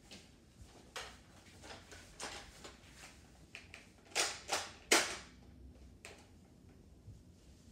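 Scattered sharp taps and knocks, with the loudest three in quick succession about four to five seconds in.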